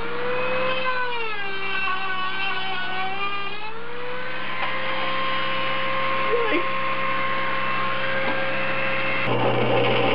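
Dremel rotary tool with a cutoff wheel cutting thin welded stainless-steel sheet, its high motor whine dipping and rising in pitch as the wheel loads up in the cut. About four seconds in it settles to a steady whine, spinning free. Near the end the sound cuts off abruptly and a steadier, noisier drill press sound takes over.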